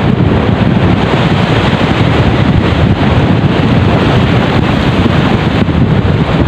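Strong wind on the microphone, a steady low rumble, with waves breaking and splashing against shoreline rocks.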